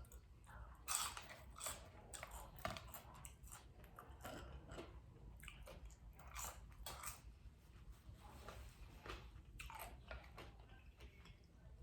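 Close-miked chewing and biting as a person eats a fried pizza puff cheeseburger, with irregular mouth clicks and smacks.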